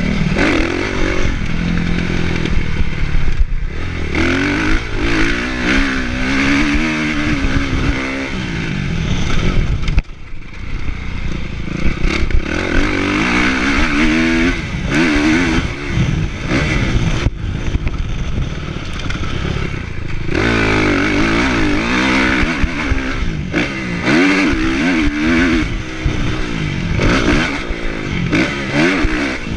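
Kawasaki motocross bike engine on the track, its pitch repeatedly rising and falling as the throttle is worked through the gears, with a short drop off the throttle about ten seconds in. Heard from a chest-mounted camera, with wind and rattling from the bike over the terrain.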